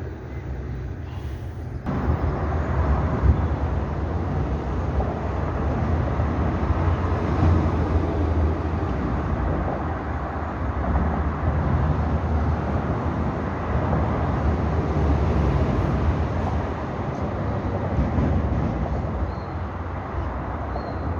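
Steady low rumble of a moving vehicle with a constant low hum; it turns louder and fuller about two seconds in.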